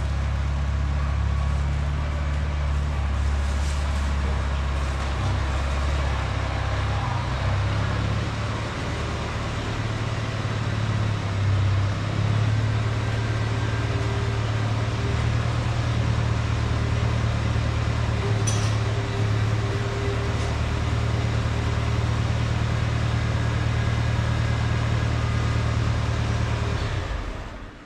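Small farm tractor's engine running as the tractor is driven in. Its note shifts over the first dozen seconds, then it idles steadily before being shut off near the end.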